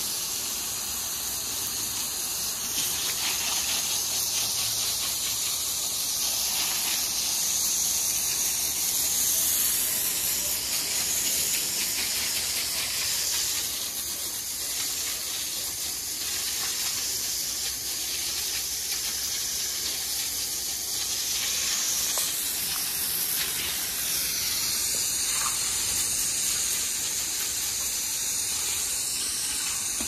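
Garden hose spray nozzle shooting a steady jet of water, hissing as it strikes an alligator's back and the hard floor.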